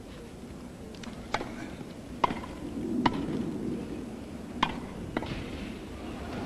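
Tennis ball struck by rackets during a rally: about five sharp hits at uneven intervals, two of them in quick succession like volleys at the net. A crowd murmur swells briefly in the middle.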